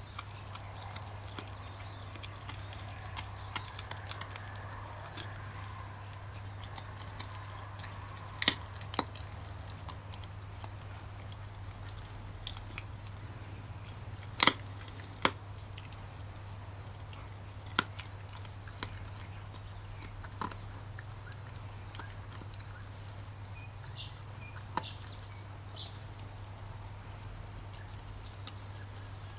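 Leonberger puppy gnawing a raw chicken frame, with sharp cracks and crunches of bone every few seconds between quieter chewing.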